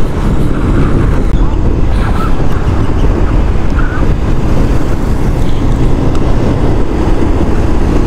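Motorcycle running steadily at riding speed, with a dense, steady rush of wind and road noise.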